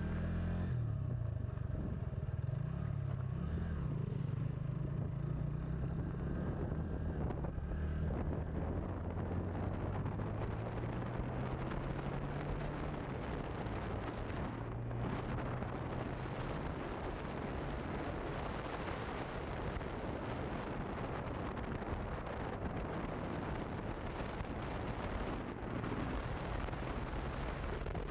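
Honda CB150F's single-cylinder engine running as the bike is ridden, its pitch rising for a few seconds as it pulls harder. Through the second half, a steady rush of wind and road noise on the microphone grows over the engine and largely covers it.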